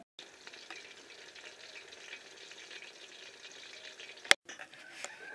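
Pieces of fish frying in a pot of hot oil, a steady sizzle that breaks off about four seconds in at a single sharp click.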